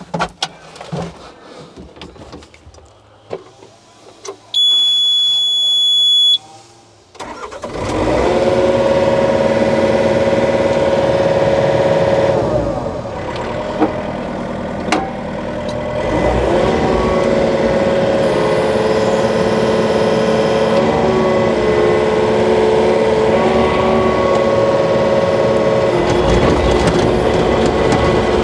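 A Norwood portable bandsaw mill's engine is started: a steady electronic beep lasting about two seconds, then the engine catches and runs loud and steady, dipping briefly before settling at a constant speed.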